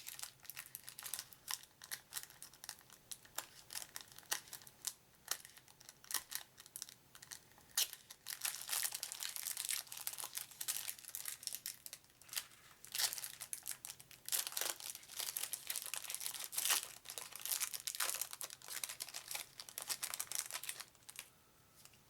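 A trading card pack's wrapper being torn open and crinkled by hand, a run of sharp, irregular crackles that grows busier about eight seconds in and stops near the end.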